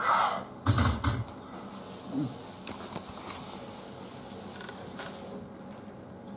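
Thin plastic carrier bag crinkling and rustling under two kittens wrestling on it, with scattered sharp crackles. A couple of dull bumps come about a second in.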